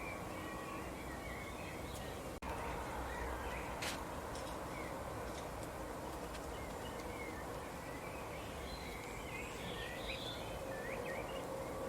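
Small birds chirping in short, high twitters over a steady background hiss of outdoor ambience, the chirps busier near the end. There is a brief dropout in the sound about two and a half seconds in and a sharp click about a second later.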